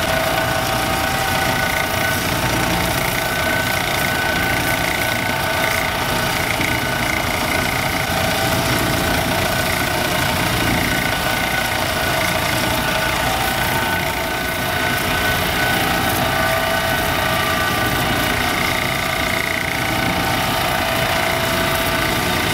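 Electric motor of a homemade lapidary drum sander running steadily, spinning an expandable rubber drum with a fine 9-micron diamond belt while a chrysocolla nugget is pressed against it for the final polish. The sound is a steady whine of several held tones over an even hiss.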